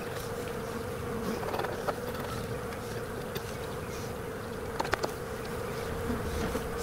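Honeybees buzzing steadily over an open hive, the many-bee hum of a colony during a frame inspection. A few faint clicks about five seconds in.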